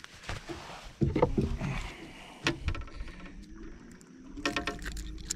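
Knocks and clatter of handling inside a small fishing boat: a few sharp knocks against the hull, with a low, steady rumble from about halfway in.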